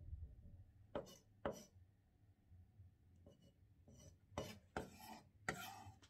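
Kitchen knife tapping and scraping on a wooden cutting board. There are two sharp taps about a second in, then a few longer scrapes near the end.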